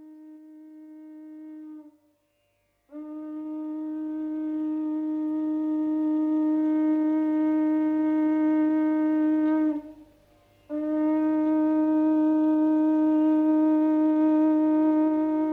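Conch shell (shankha) blown in long, steady, single-pitched blasts. One blast ends about two seconds in, a second runs for about seven seconds, and after a short break a third begins and carries on.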